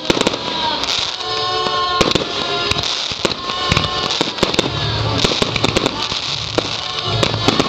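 Fireworks finale: many shells bursting in quick succession, a dense run of sharp bangs and crackling, with music playing underneath.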